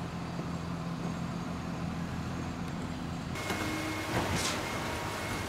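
Concrete mixer truck's diesel engine running steadily. About three seconds in it gives way to louder construction machinery with a steady high whine.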